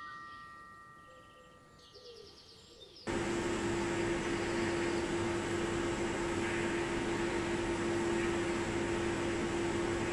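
A bright chime fades away over the first two seconds. About three seconds in, a steady machine hum cuts in: a constant low tone over an even rush of air, from the powder-coating booth's extractor fan running.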